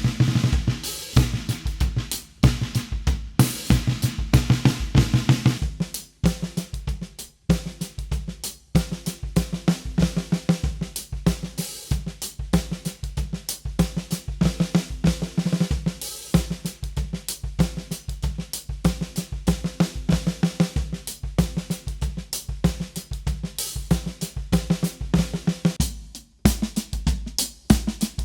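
Drum kit grooves featuring a Gretsch Swamp Dawg 8x14 snare drum, with steady bass drum, hi-hat and cymbals. The playing breaks off briefly about six seconds in and again near the end before carrying on.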